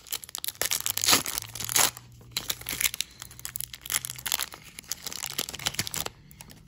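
Trading card pack wrapper being torn open and crinkled by hand, in a run of irregular crackles and tearing noises.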